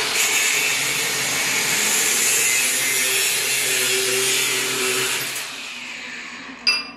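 Cordless angle grinder cutting steel at the mini jeep's front bumper, a loud steady grinding hiss that eases off about five and a half seconds in, followed by a short sharp click near the end.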